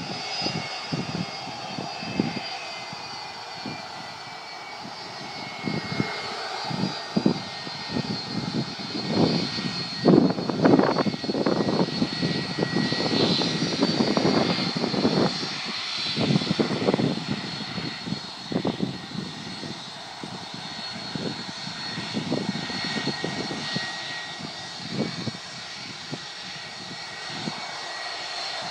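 Jet airliner engines on the runway: a steady high whine over an uneven roar that swells for several seconds in the middle and then eases off.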